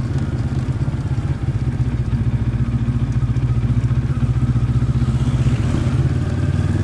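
2023 Moto Morini X-Cape 650's parallel-twin engine and exhaust running at fairly steady revs under way, with a throbbing low pulse.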